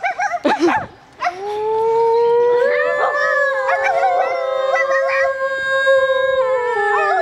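A group of people howling like wolves through cupped hands: several long, overlapping howls that start about a second in, hold steady and then fall in pitch near the end, after a few short yips in the first second.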